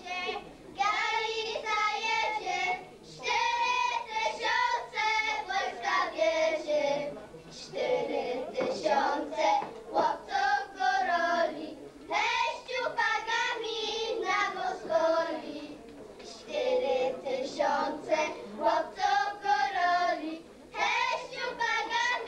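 A group of girls singing a highland folk song together, unaccompanied, in phrases of a few seconds with short breaks between them.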